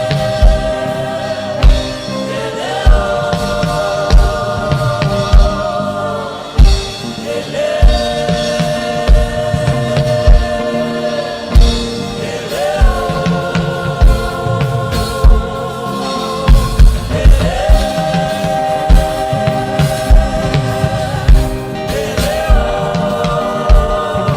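Gospel worship music: a group of voices singing long held notes that change every few seconds, over a steady drum beat of about one beat a second.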